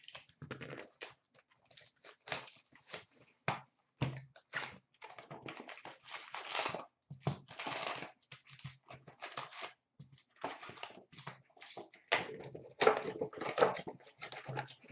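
A box of hockey trading cards being opened by hand and its wrapped packs pulled out and stacked: irregular crinkling of the pack wrappers with scraping and tapping of cardboard, busiest near the end.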